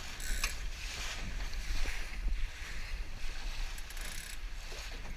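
Wind buffeting the microphone with a steady low rumble, over water rushing and splashing along a sailboat's hull, with a few brief louder splashes.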